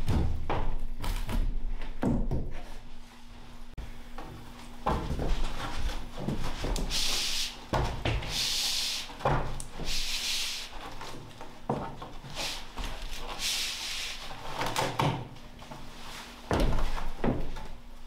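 Wooden knocks and thumps as a heavy door slab and lumber are set down and shifted on a wooden frame over a plank floor, with footsteps on the slab. Four short hissing sounds come in the middle.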